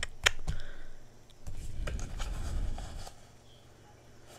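Paper banknotes and binder pages being handled on a desk: light rustling and handling noise with a few sharp taps and clicks, dying down in the last second.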